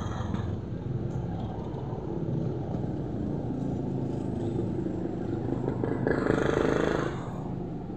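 Steady low engine rumble of a motor vehicle, swelling louder for about a second around six seconds in.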